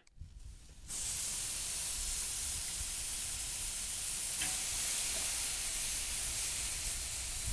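Marinated kalbi beef short ribs (flanken cut) sizzling on a hot grill grate: a steady sizzle that starts about a second in as the meat goes down.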